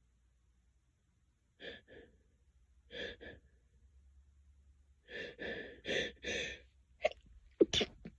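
A run of short breathy sounds in three clusters building up to a sneeze, then a sharp, loud sneeze near the end.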